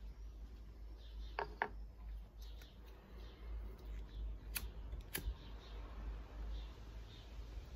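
Pocket lighter clicking as a tobacco pipe is lit: a pair of sharp clicks about a second and a half in and another pair about five seconds in, with soft puffs from drawing on the pipe about once a second.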